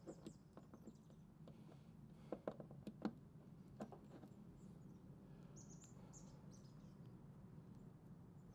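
Near silence: a few faint clicks and taps in the first four seconds as a Jackery portable power station's buttons and cable plug are handled, over a faint steady low hum, with a few faint high chirps a little past halfway.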